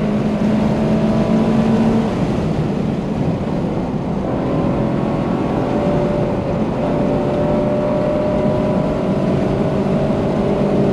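Subaru BRZ's flat-four engine, fitted with a catless exhaust and aftermarket header, heard from inside the cabin at high revs. The engine note drops about two seconds in as the car slows for a corner, then climbs steadily again under throttle.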